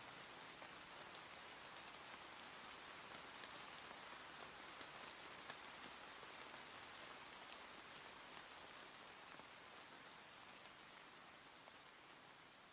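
Faint steady hiss with scattered light crackles, slowly fading out.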